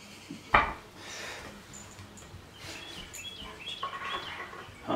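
A sharp knock of wooden bunk-bed ladder parts about half a second in, then a run of faint, short, high squeaks as screws are turned in by hand, and a lighter bump near the end.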